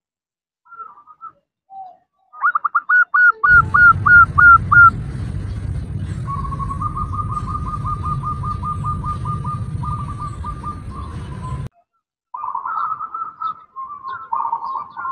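Female zebra dove (perkutut) cooing. First comes a run of about ten rising notes, then a long, fast string of short coos, then warbling coos near the end. A low rumble sits under the middle part.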